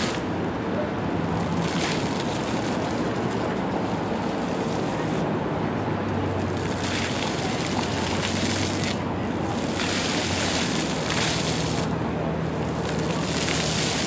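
Splashing of a plaza fountain's ground jets shooting up and falling back onto the wet pavement, growing louder in several surges as the jets rise, over a steady low hum of city traffic.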